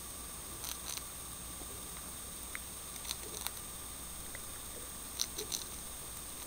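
Dwarf hamster nibbling a cracker and packing it into its cheek pouches: scattered faint, crisp clicks that come in small clusters, about a second in, around the middle and again near the end.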